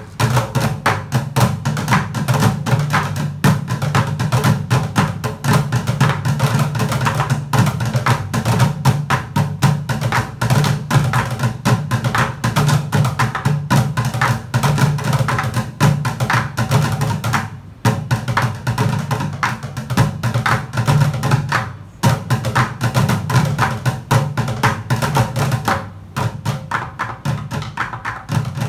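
Bucket drumming: five players beating drumsticks on upturned plastic buckets in a fast, dense rhythm of deep hollow thuds and sharper stick clicks. The beat stops briefly a couple of times in the second half.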